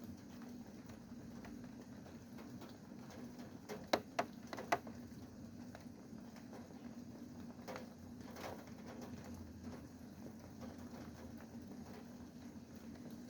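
Rain dripping: scattered drops tapping, with a cluster of three sharp taps about four seconds in and a couple more around eight seconds, over a steady low hum.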